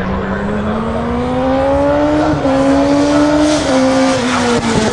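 Racing motorcycle engine accelerating hard, its pitch climbing and dropping sharply at two upshifts about two and a half and three and a half seconds in, then falling away near the end as it passes.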